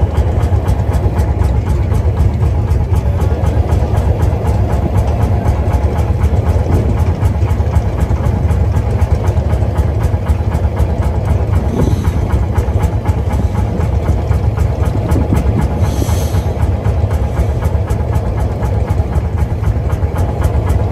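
Landini hot-bulb tractor's single-cylinder two-stroke engine running with a steady, fast chugging beat.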